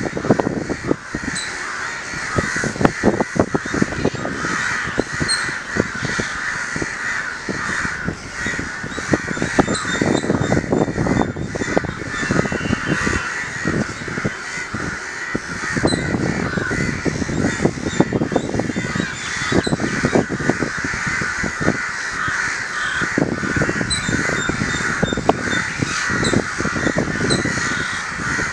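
Crows cawing harshly and continually, the calls overlapping without a break, over an irregular low rumble.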